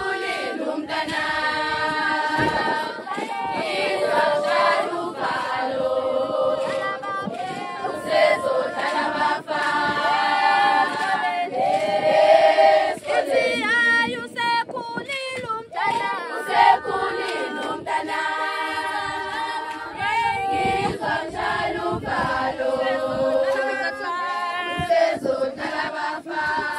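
A group of women and girls singing a traditional Zulu song together, voices only.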